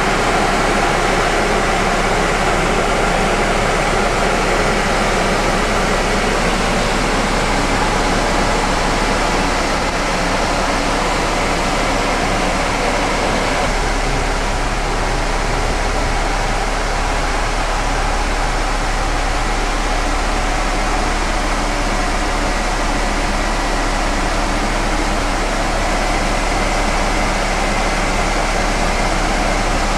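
Steady, loud running noise inside the cab of a Pierce pumper fire engine, the parked truck's machinery and ventilation running continuously with faint steady tones in it.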